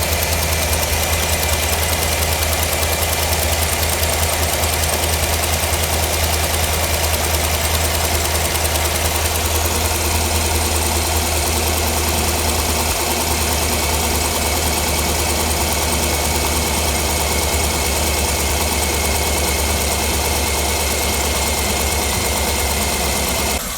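2009 Cadillac Escalade's 6.2-litre pushrod V8 idling steadily with its valvetrain opened up, the rocker gear clattering. The engine has a lifter tick, which the owner puts down to a lifter not getting oil.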